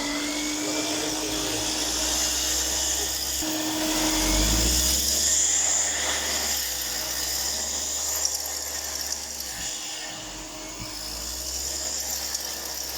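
The 1.5-litre turbo engine of a Chevrolet Captiva running, with a steady high whine and hiss over it and a brief rise in engine speed about four seconds in. The owner suspects that the AC compressor is behind the engine's ticking noise.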